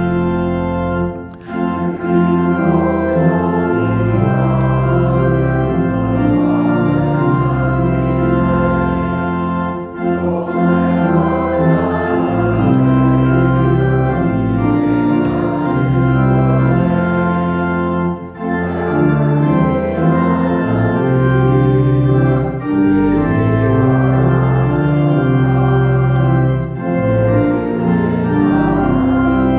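Church organ playing a hymn tune in sustained chords, the phrases separated by brief breaks about every eight seconds.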